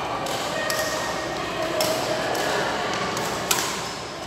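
Badminton rackets striking a shuttlecock in a rally: several sharp strikes a second or so apart, the loudest about three and a half seconds in, over a steady background of noise from the sports hall.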